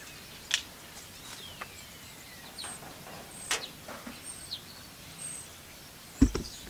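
Outdoor background with scattered short bird chirps and calls, some high and sliding down in pitch. A single low thump comes near the end.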